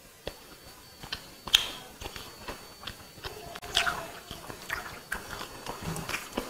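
A person chewing a mouthful of food close to a clip-on microphone, with wet lip smacks and small mouth clicks coming every second or so.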